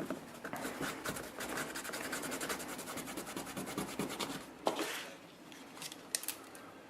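Fast, scratchy rubbing strokes made by hand, stopping about two-thirds of the way in, followed by a few light clicks.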